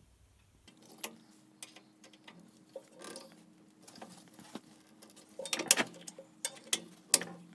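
Screwdriver tip clicking and scraping against the Ridgid R4512 table saw's cast-iron trunnion and sheet-metal cross member as it is worked into place to lever the blade carriage. Scattered light metal taps, loudest just before six seconds in and again about seven seconds in.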